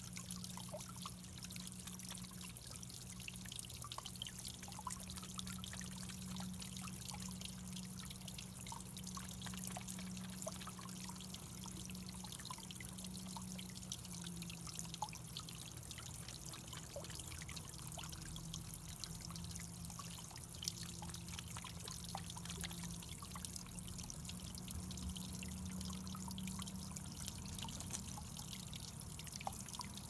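Water trickling steadily over flat stones into a shallow pebble-bottomed garden pond, with many small splashes and a low steady hum underneath.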